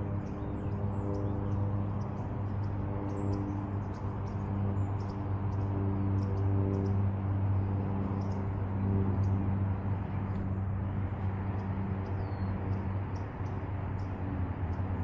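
Small birds chirping, many short high calls throughout, over a steady low hum with held tones that break off and resume.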